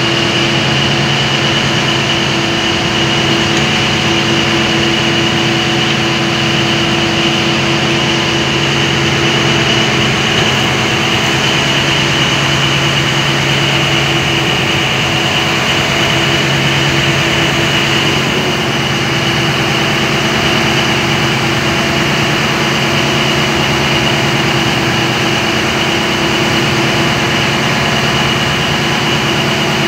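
Fishing trawler's engine running steadily: an even, unbroken drone with a steady high whine over it.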